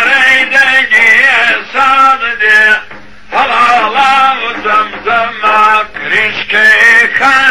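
Man singing a Kurdish folk song in long, ornamented phrases, breaking off briefly about three seconds in, over a steady low tone.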